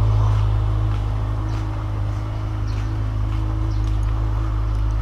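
Motorcycle engine idling, a steady low rumble with a faint even hum over it.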